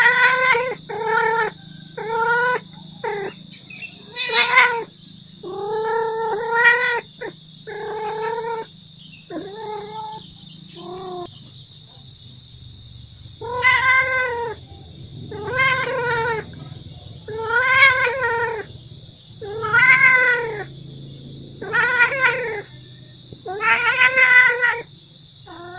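Tomcat caterwauling its mating call: repeated drawn-out yowls, each rising then falling in pitch. They come in quick succession for about ten seconds, then after a short pause about one every two seconds, over a steady high-pitched whine.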